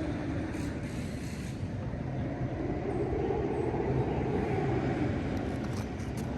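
A low, steady vehicle rumble that swells about two and a half seconds in and fades again about three seconds later, as if something heavy passes.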